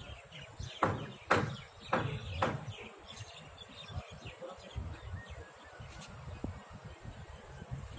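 Birds chirping in the background, with four sharp knocks about half a second apart in the first two and a half seconds.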